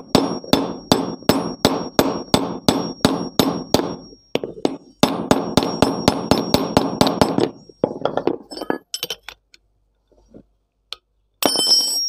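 Hammer repeatedly striking a 24 mm spanner on the top bolt of a motorcycle front fork tube to break the stuck bolt loose, about three blows a second with a ringing metallic clang. The blows come faster for a few seconds and then stop. Light metal clinks follow near the end.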